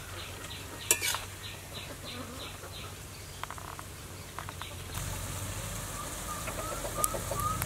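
A metal spatula stirring and scooping food in a hot wok, with sizzling and a sharp clang of the spatula against the pan about a second in. Near the end, chickens clucking.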